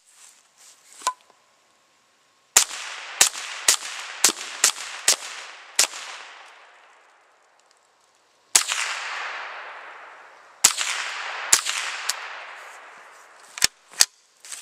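Ruger 10/22 carbine firing .22 LR semi-automatically: a quick string of about seven shots roughly half a second apart, then a few more spaced further apart, each shot trailing a long echo. Two sharp clicks near the end.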